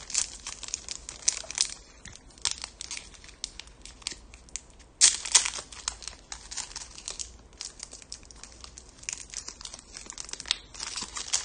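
Thick plastic wrapper of a 2020 Panini Diamond Kings card pack crinkling and crackling irregularly as fingers pick and pull at it to tear it open, with a louder burst of crinkling about five seconds in.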